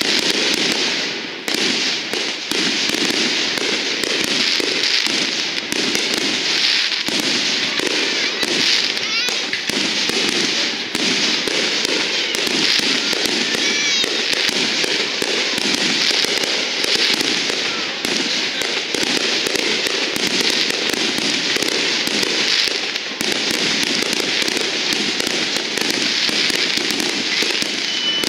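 Aerial fireworks display: many shells bursting and popping in rapid succession, without a break.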